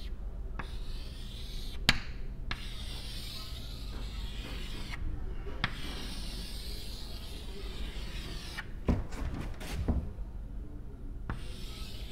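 Chalk scraping on a blackboard as circles are drawn, with a few sharp taps where the chalk strikes the board, the last ones clustered near the end.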